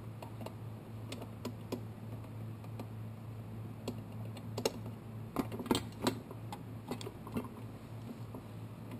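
Small metal clicks and taps of lock parts being handled as the retaining clips of a Yale Mono Lock are fitted back in, with a cluster of louder clicks about five to six seconds in. A steady low hum runs underneath.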